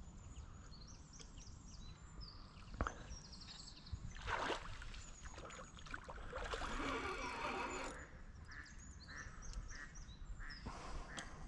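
Outdoor waterside ambience with small birds chirping, broken by a brief rush of noise about four seconds in and a longer one from about six to eight seconds.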